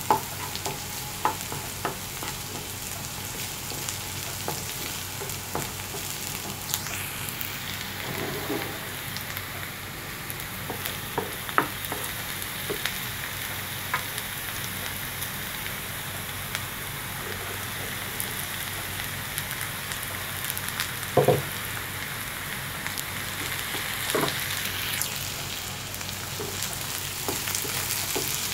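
Diced onions sizzling steadily as they fry in oil in a nonstick frying pan, stirred with a wooden spatula that knocks and scrapes against the pan now and then.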